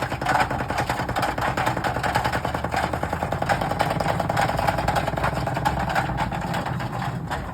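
Washing machine still running under power, its motor and drum giving a steady hum with a rapid, even rattle as the machine burns inside.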